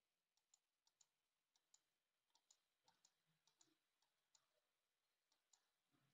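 Near silence with a dozen or so faint, irregular clicks.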